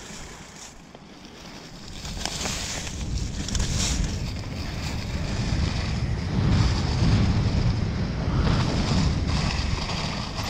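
Wind rushing over the microphone and the rumble of a YT Capra mountain bike's knobby tyres rolling fast over dry leaves and dirt, getting louder about two seconds in as speed builds.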